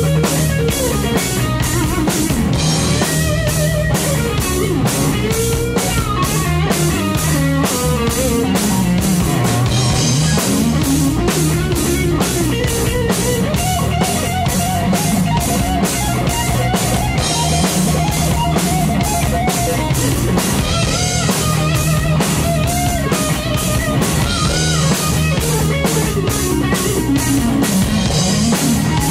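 Live rock band playing an instrumental passage: an electric guitar lead with bent notes over a steady drum kit beat and bass guitar. Midway through, the guitar holds one note for several seconds.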